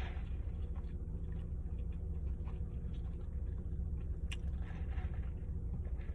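Faint chewing with small mouth clicks over a steady low rumble, and one sharp click about four seconds in.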